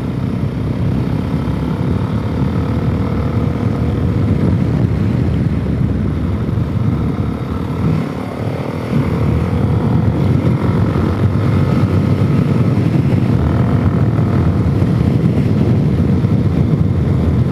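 Suzuki DR-Z400S's single-cylinder four-stroke engine running under way, a little rumble from the exhaust through its full spark arrestor. It eases off briefly about eight seconds in, then pulls again. With the carburettor rejetted (25 pilot, 160 main), it no longer pops on deceleration.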